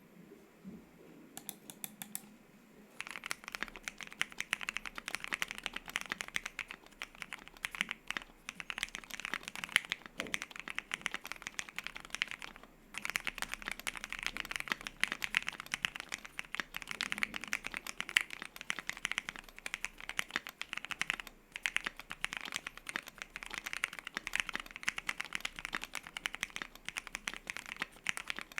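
Typing on a gasket-mount Voice65 mechanical keyboard with Lavender switches lubed with Krytox 205g0 and filmed, a polycarbonate plate, foam-dampened case and dye-sub PBT keycaps. A few keystrokes come first, then steady fast typing starts about three seconds in, with a couple of short pauses.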